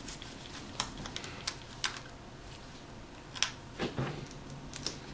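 Scattered light clicks and taps, about eight, irregularly spaced: a precision screwdriver and a compact digital camera being handled while small screws are taken out of its right side.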